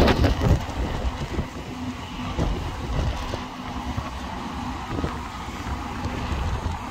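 Gusty wind buffeting the microphone, heaviest at the start and easing after about a second, with a tram running past in the distance.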